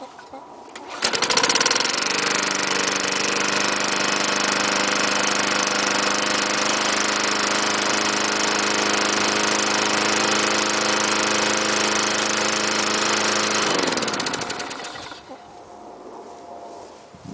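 Tecumseh LEV100 4.5 hp four-stroke engine on a 1999 Lawn-Boy 10260 mower starting from cold about a second in and catching at once. It runs steadily, then is shut off near the end and winds down.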